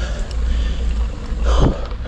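Wind noise buffeting the microphone on a moving bicycle, a steady low rumble, with one brief sweeping sound about one and a half seconds in.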